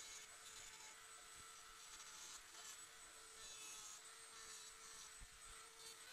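Faint handheld electric rotary tool carving pig-skull bone: a thin steady whine with stretches of scratchy grinding that come and go as the bit touches the bone.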